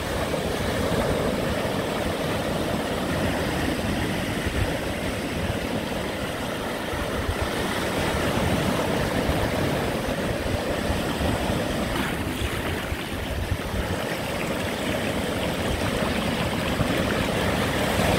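Ocean surf breaking and washing up the sand, a steady rushing noise with a low rumble.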